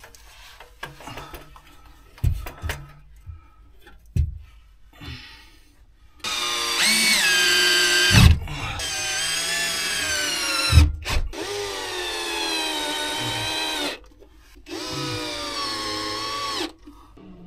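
Cordless drill driving screws through a crawlspace vent fan's flange into a plywood panel: four runs of motor whine, each two to three seconds long, rising and falling in pitch as the screws bite. Before them come a few seconds of scattered knocks and thumps from handling the fan and tools.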